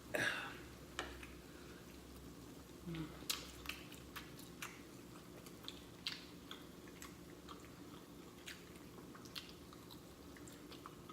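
Close-up mouth sounds of a person eating: wet smacking and clicking while chewing, irregular, with one louder smack right at the start.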